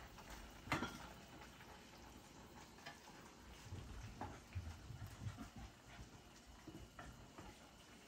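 Quiet kitchen handling sounds while cooking at the stove: a sharp click about a second in, then a few fainter taps and soft low thumps.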